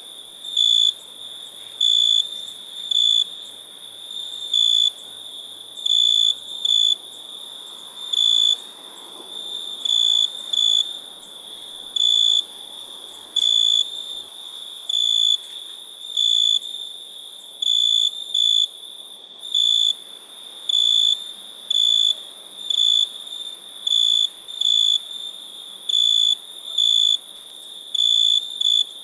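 A cricket chirping in short, high-pitched chirps, one or two a second and unevenly spaced, over a steady high hiss.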